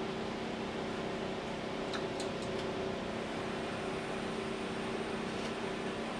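A steady machine hum that does not change, with a few faint clicks about two seconds in.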